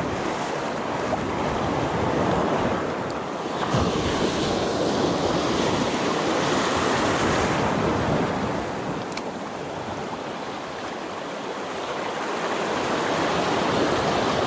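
Sea waves washing over and breaking on shoreline rocks, surging louder and softer as each wave comes in.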